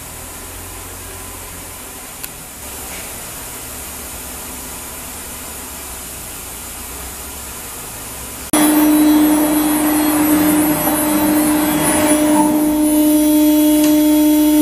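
Thermwood CNC router running. A low, steady machine hum is followed, about two-thirds of the way in, by a sudden switch to a much louder steady whine with a clear, unchanging pitch.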